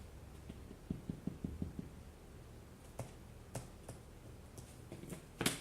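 Trading cards being handled and laid down on a table: a quick run of soft taps about a second in, a few scattered clicks, and a sharper click near the end.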